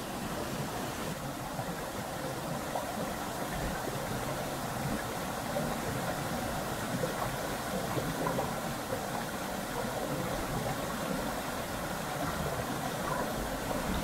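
Water of a forest waterfall and stream rushing steadily over rocks.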